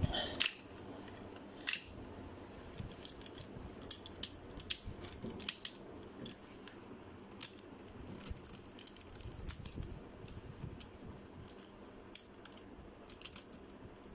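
Hard plastic parts of a Transformers Sixshot figure clicking and knocking as the toy is handled and transformed: irregular sharp clicks, the loudest near the start.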